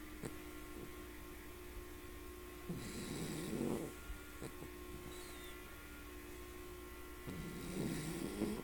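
Small Bichon mix dog snoring in its sleep: two snores, each about a second long, some four to five seconds apart.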